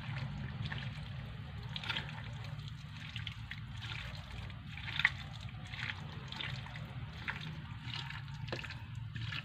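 A hand squeezing and kneading raw chicken pieces in a wet marinade of lemon juice, chili powder and salt in a plate: soft, irregular squelching, over a steady low hum.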